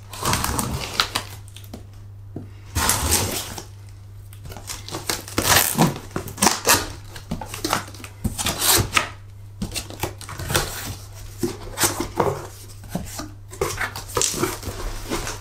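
Cardboard box being opened: a knife slits the packing tape and the tape is pulled off, then the cardboard flaps are pushed open and folded back. A series of short ripping, scraping and rustling noises with scattered knocks.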